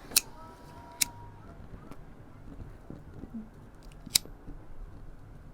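Cigar cutter snapping shut three times, with sharp single clicks: two close together near the start and one about four seconds in.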